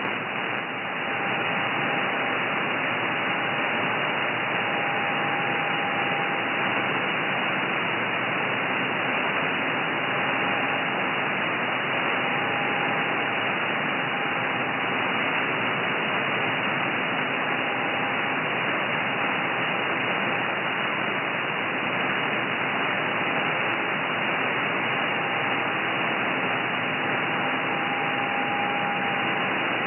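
Shortwave receiver in upper sideband on the 30 m amateur band: a steady hiss of band noise, cut off sharply above about 3 kHz, with faint steady tones from weak JT9 digital-mode signals coming and going.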